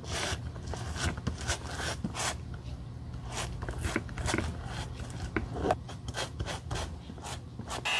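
Flat metal spatula scraping across a shoe's leather sole in repeated short strokes, about two or three a second, spreading black contact cement over it.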